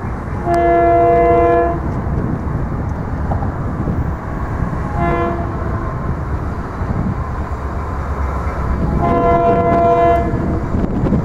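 Train air horn sounding a multi-note chord in three blasts: long, short, then long, over a steady low rumble.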